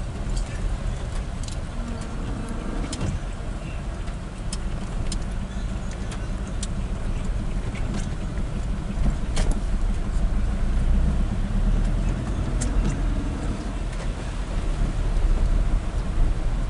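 Steady low engine and road rumble inside a moving vehicle's cabin on a wet road, with scattered sharp ticks.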